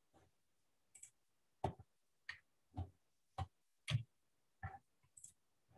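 A run of about eight soft clicks from a computer mouse, roughly one every two-thirds of a second.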